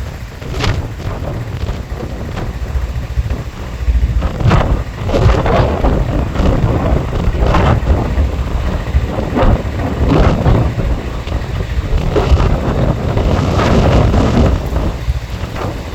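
Strong gusty wind buffeting the microphone: a heavy low rumble that swells and drops with each gust, with sharper rushes of wind over it, growing stronger a few seconds in.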